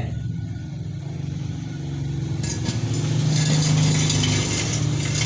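A vehicle engine running steadily, with a rushing noise that swells in about halfway through and grows louder.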